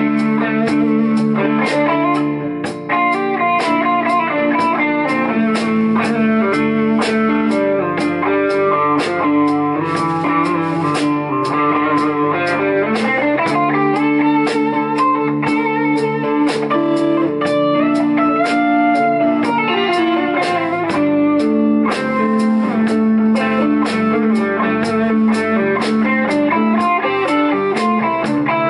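Live instrumental rock band: two electric guitars, electric bass and drums playing together, a lead guitar line with gliding, bent notes over a steady cymbal beat. No singing.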